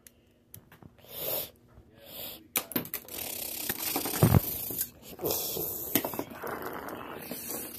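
A child's mouth sound effects for a toy plane attack: breathy hissing and blowing noises, with short bursts at first and then a continuous hiss from about two and a half seconds in. There is a heavy thump a little after four seconds and small clicks throughout.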